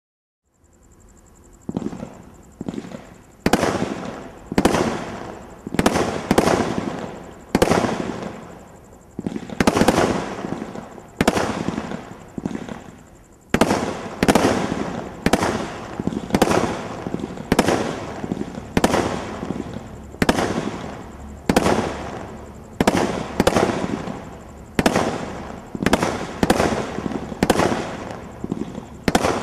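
Real Steel 107-shot combination Roman candle barrage firework cake firing a long string of shots, starting about two seconds in and going on at roughly one or more a second, each a sharp report that fades quickly.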